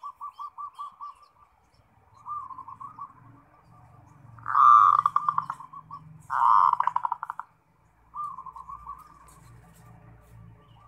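Zebra dove (perkutut) cooing in the trilled 'ngerot' song style: a series of rapid, pulsing coo phrases, two of them louder in the middle, with short gaps between.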